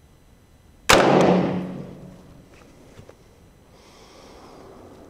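A single shot from a Springfield Armory Saint Victor .308 AR-10 rifle about a second in: a sharp crack whose report rings out and fades over about a second.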